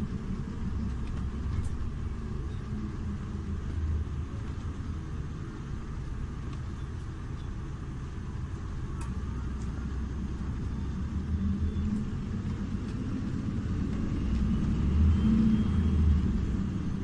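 Iveco Urbanway 12 Hybrid city bus running, a steady low rumble that swells about fifteen seconds in and eases off near the end.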